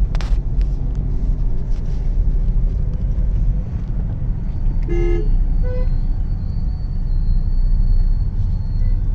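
Road traffic with a steady low rumble throughout. A vehicle horn toots briefly about five seconds in, and a second short toot follows just under a second later.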